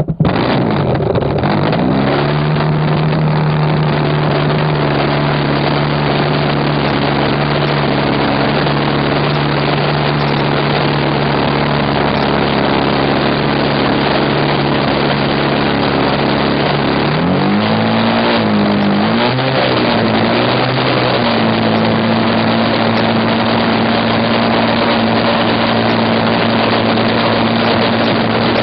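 RC model airplane's engine, heard from right on the plane, starting and running: it catches at once, climbs to a steady idle within a couple of seconds, then is revved up and down a few times about two-thirds of the way in before settling at a faster steady speed.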